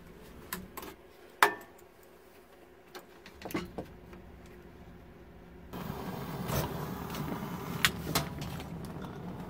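Gas range oven being lit by hand: knob clicks and a sharp metallic clank with a short ring about a second and a half in, more light knocks, then from just past halfway a steady rushing hiss with two sharp clicks.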